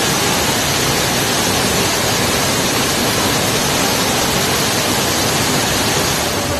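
A steady, even rushing noise with no pitch or rhythm, fading slightly near the end.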